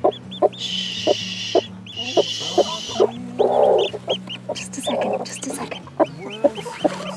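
Broody hen clucking in a quick, steady series of short low clucks as she is lifted off her nest, with two longer, harsh higher-pitched calls in the first few seconds. Faint high peeps from a newly hatched chick come in later.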